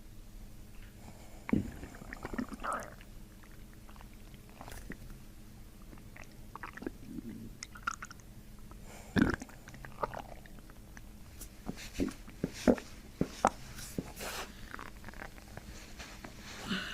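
Human stomach and intestinal gurgling (borborygmi) as the gut releases during abdominal manipulation: irregular short gurgles, with a few sharp pops about three-quarters of the way through.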